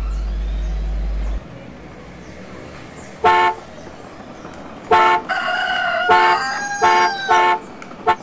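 Short, loud electronic horn beeps from a ride-on toy jeep: one about three seconds in, then a string of quick beeps from about five seconds on. A wavering call sounds underneath between the beeps, and a low hum cuts off after about a second and a half.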